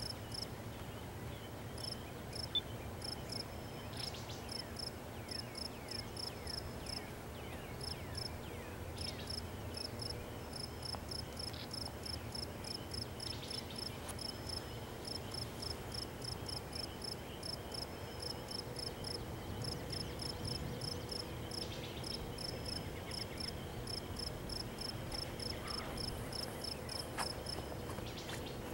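Crickets chirping in a steady rhythm, about two to three high chirps a second with occasional short pauses, over a low steady rumble. A single sharp click about two and a half seconds in.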